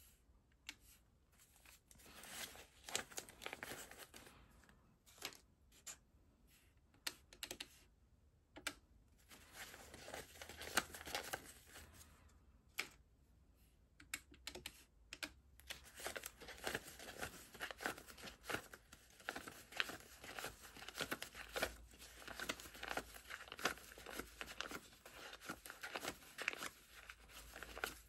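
Paper banknotes being counted by hand: faint crisp rustling and flicking of the bills, mixed with taps on a calculator's keys. The sound comes as many short crinkles and clicks with brief gaps between them.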